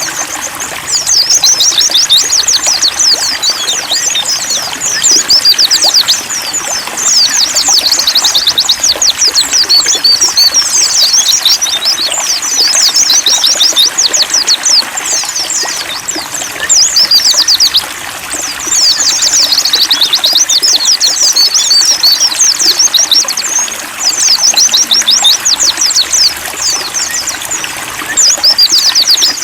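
White-eyes (pleci) singing rapid, high, twittering song in runs of a few seconds with short lulls between, over a steady trickle of water.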